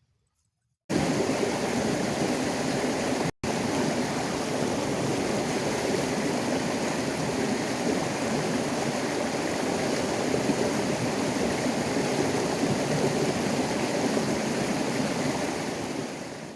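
Water rushing steadily along a small irrigation ditch, a constant even rush that cuts in abruptly about a second in, drops out for an instant just after three seconds and fades away at the end.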